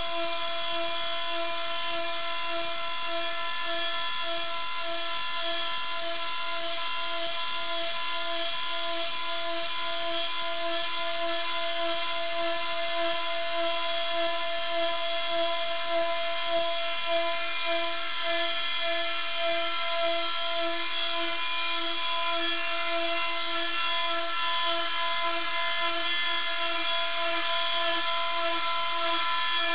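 CNC router spindle running with a steady high-pitched whine that holds one pitch throughout, with a slight regular throb in its lowest tone.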